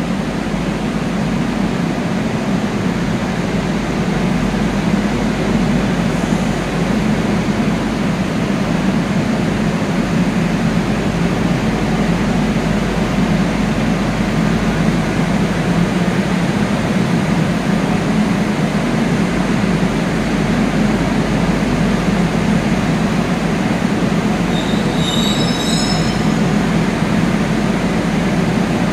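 Metro train at a station platform: a steady, loud low hum and rumble with no break, and a short run of high chirping tones about 25 seconds in.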